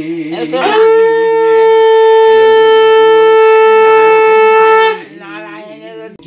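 Conch shell (shankh) blown in one long steady note of about four seconds, swelling up into pitch at the start and cutting off sharply, over voices chanting.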